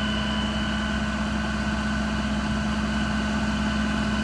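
Ram 5500's Cummins 6.7-litre inline-six diesel running steadily, with a steady high whine from the hydraulic pump that powers the service crane.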